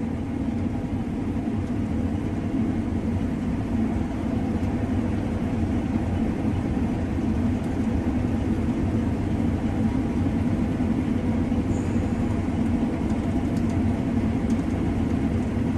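Combine harvester running steadily under load while cutting wheat, a constant low machine drone.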